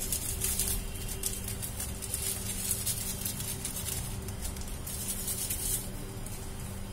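Faint, irregular crackling of bread pizzas toasting on a hot tawa over a low gas flame, over a steady low hum.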